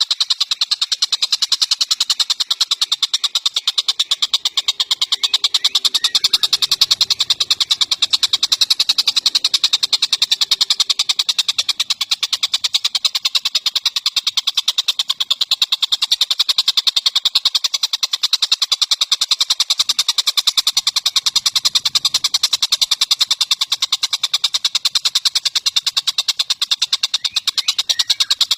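Recorded bird calls from a songbird training track: a loud, rapid, unbroken rattle of sharp high notes, many each second.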